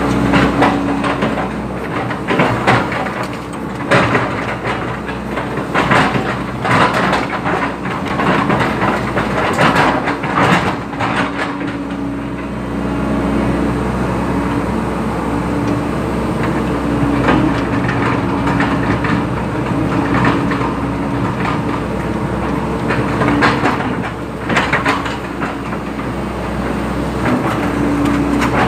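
Hydraulic excavator at work: its diesel engine runs steadily under a hydraulic whine that comes and goes, with repeated metal clanks and rattles, thickest in the first half.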